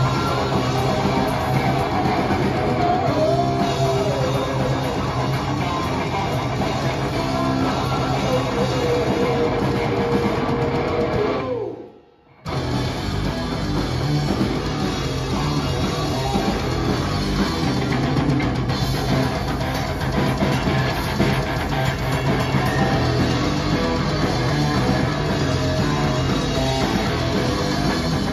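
Live rock band playing: electric guitar, bass and drum kit. The sound drops out almost entirely for under a second about twelve seconds in, then the music resumes.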